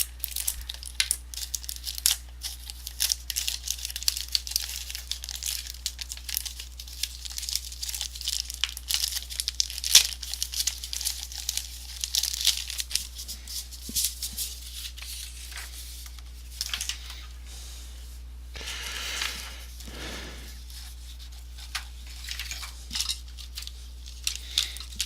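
Thin plastic film crinkling and rustling in hand, with many small irregular crackles: a new Mylar keyboard membrane being handled and freed from its packaging.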